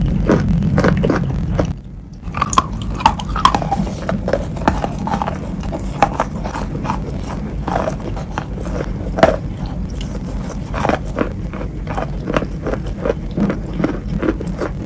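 Close-up chewing and biting of wet chalk mixed in clay paste: many short, moist crunching chews in quick succession. A low hum underneath stops about two seconds in.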